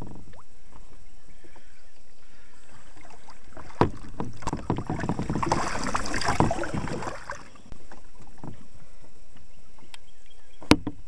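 Water splashing and sloshing for about three seconds as water is emptied out of a kayak, after a single knock on the hull, with a sharp click near the end.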